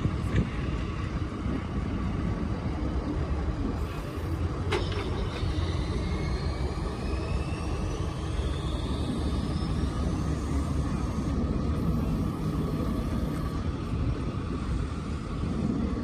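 Steady low rumble of idling motor vehicles and street traffic. There is a sharp click a little under five seconds in, and a faint rising whine from about six to eleven seconds.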